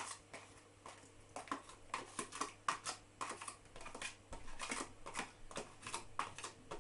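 A spoon scraping and clicking against a dish in an irregular clatter of short scrapes and taps, as a portion of chilli con carne is spooned out.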